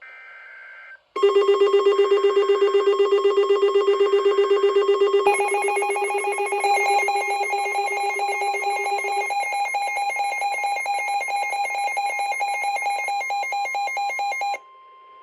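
Emergency Alert System alert tones for a Special Marine Warning. A brief two-tone data burst comes first. About a second in, a loud, fast-pulsing electronic trill starts. It shifts to a warbling multi-tone pattern around five seconds in and cuts off a little before the end, leaving a quieter steady tone.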